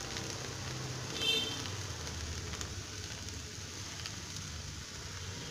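Sliced okra sizzling gently in a nonstick kadai while a spatula stirs it, with a few faint scrapes and taps of the spatula on the pan. A brief high-pitched squeak sounds about a second in.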